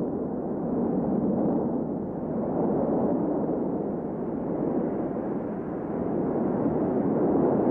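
Volcanic lava fountain erupting from a cone: a steady low rushing rumble with no separate blasts, swelling and easing slowly.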